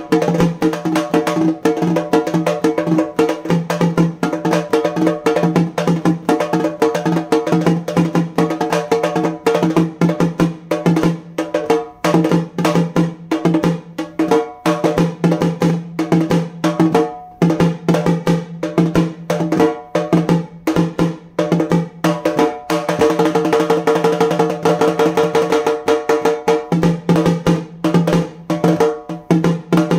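Halgi, a Maharashtrian frame drum, beaten with two sticks in a fast, dense rhythm, its taut skin ringing with a steady pitch under the strokes.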